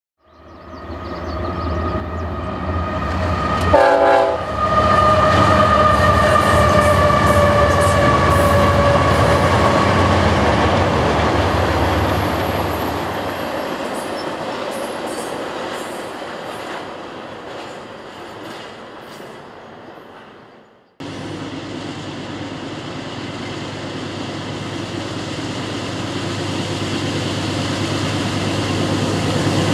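A CSX intermodal freight train passing: the locomotive horn sounds about four seconds in and sags in pitch as it goes by, then the steady rumble and clatter of the stack cars fades away. After an abrupt cut about two-thirds in, the diesel locomotives of a second freight train are heard approaching, growing steadily louder.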